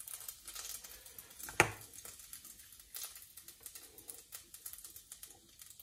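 Faint, irregular soft clicks and ticks of hands rolling raw minced pork into balls, with one sharper click about one and a half seconds in.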